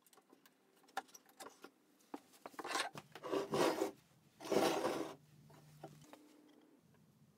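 Vintage Anchor metal hand planes being handled on a wooden workbench. A few light clicks and knocks come first, then three scraping swishes from about two to five seconds in, as a plane's sole slides across the benchtop. The last swish is the loudest.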